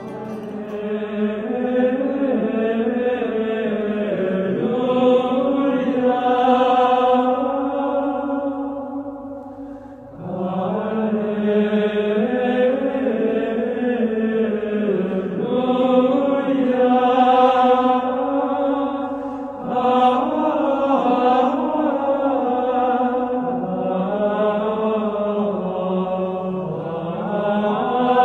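Background music of slow chanted singing in long held phrases, dipping at about ten seconds and pausing briefly near twenty.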